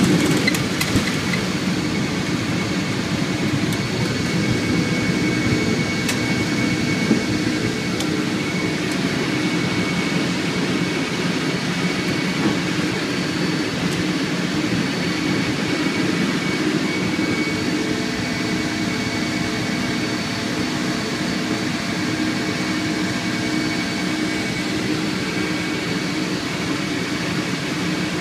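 C-17 Globemaster III's four turbofan engines at takeoff and climb power, heard inside the cockpit as a steady, dense engine-and-airflow noise with a faint high whine. A rougher low rumble with a few clicks eases off within the first second or two.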